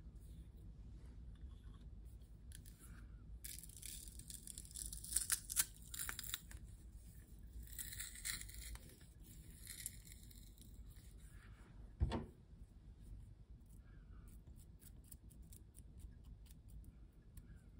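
Metal garlic press crushing a raw garlic clove: a few seconds of crackly crunching and squeezing clicks, strongest about a third of the way through. A single thump about twelve seconds in, then light scraping ticks near the end as the pressed garlic is scraped off the press with a spatula.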